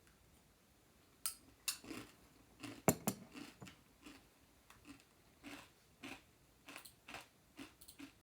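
A run of short, crisp clicks and crunches at an irregular pace, starting about a second in, the loudest near the middle.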